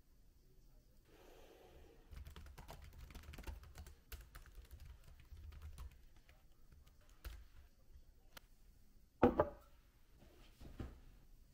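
Typing on a computer keyboard: a run of quick, light key clicks, with one louder knock about nine seconds in.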